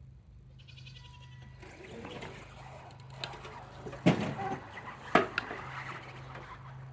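Homemade RC bulldozer at work: a steady low electric motor hum, then a few seconds of scraping and clattering as it moves, with two sharp loud knocks about a second apart.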